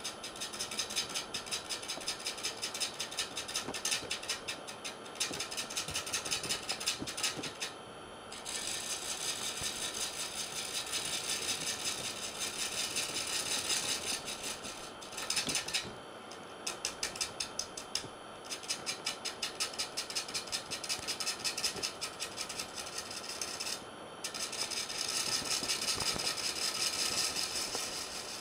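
A turning gouge cutting the face of a large laminated wooden platter spinning on a lathe: a steady hissing scrape of flying shavings that pulses rapidly, with brief breaks about 8, 16 and 24 seconds in.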